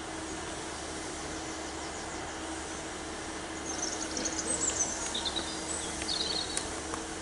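Diesel multiple unit standing with its engine idling: a steady low hum under a general rumble. Small birds chirp and twitter several times in the second half.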